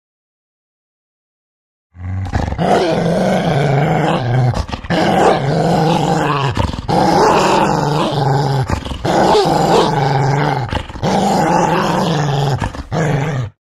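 A dog growling and roaring in a string of about six long, deep growls, one straight after another, starting about two seconds in.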